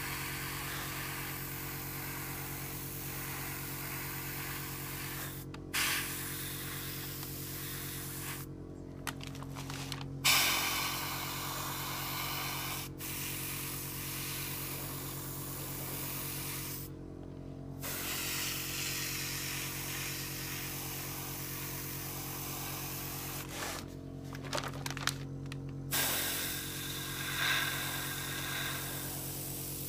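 Gravity-feed airbrush spraying paint: a steady hiss of air and paint that stops for a moment about four times as the trigger is let off and pressed again, over a steady low hum.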